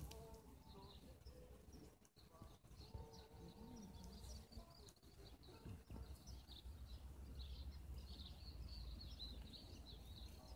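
Faint outdoor ambience: scattered bird chirps, more of them in the last few seconds, over a low steady rumble.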